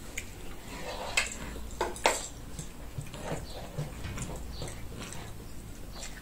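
Mouth and hand sounds of people eating rice and stew with their fingers: chewing and lip smacks, with a few sharp clicks, the loudest about a second and two seconds in.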